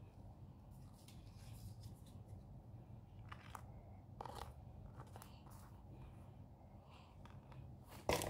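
Faint crinkling and rustling of plastic toy packaging and paper cards being handled, with a few short crackles and a louder crackle near the end.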